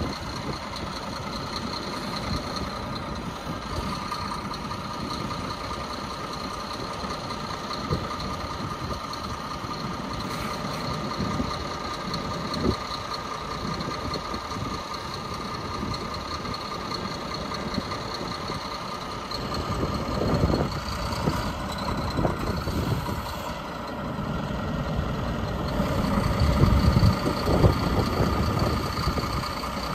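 Scania R400 hooklift truck's diesel engine running steadily with a steady whine over it, driving the hydraulics as the hook arm is lowered. It grows louder and rougher in the last few seconds.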